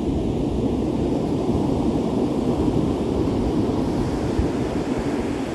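Ocean surf on a beach: a steady low rumble of breaking waves, with the hiss of a wave washing in building from about two seconds in.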